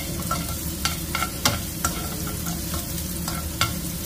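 Minced garlic sizzling in hot oil in a nonstick frying pan, being browned, while metal tongs stirring it click and scrape against the pan about twice a second.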